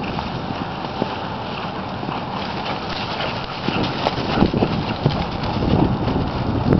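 Hoofbeats of a ridden horse running over dry grass and dirt, growing louder about halfway through as it comes close past.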